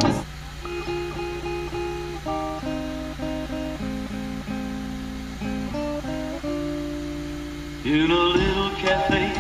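Music playing through a car stereo's speakers. A loud song cuts off at the start, then a plucked guitar plays a sparse melody of single notes, and a fuller, louder band comes in near the end.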